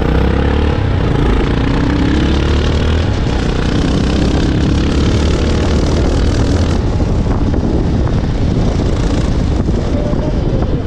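Motorcycle engine running while riding, with a heavy rush of wind on the microphone; the hiss eases a little about seven seconds in.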